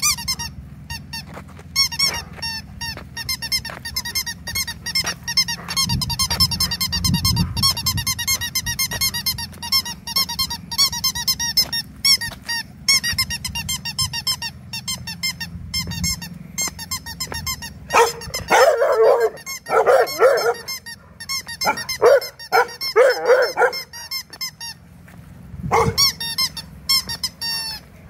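Squeaky dog toy squeaked rapidly over and over. A dog barks several times about two-thirds of the way through, and once more near the end.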